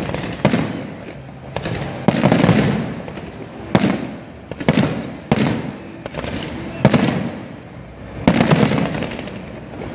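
Aerial fireworks shells bursting overhead in a display, a sharp bang about every second, each trailing off in echo.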